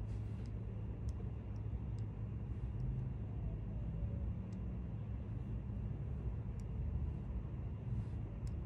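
Steady low background rumble, with faint light ticks about once a second.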